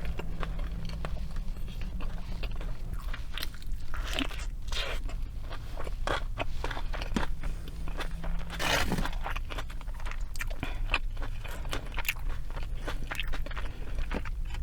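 Close-up chewing and crunching of fried fast food, with many small wet mouth clicks and a louder crunchy burst about nine seconds in, over a steady low hum.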